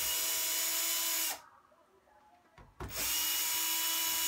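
Power screwdriver running in two steady whining bursts of about a second and a half each, with a short pause between, backing out the small screws that hold a laptop keyboard.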